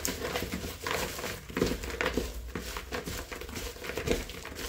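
A hand tossing strips of potato skin with oil and spices in a glass bowl, making an irregular rustling and crinkling.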